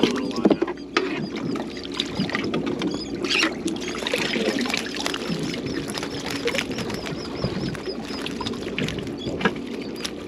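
Boat on the water: a steady low drone with several tones and water noise, broken by scattered knocks and clicks. A faint, evenly repeating high chirp runs through the middle.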